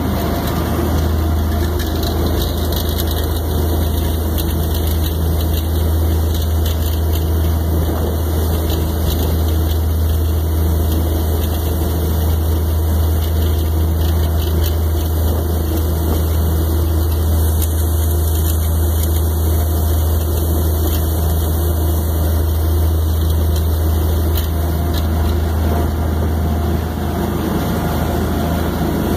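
Party boat's engines running steadily under way, a low drone, over the rush of the churning wake.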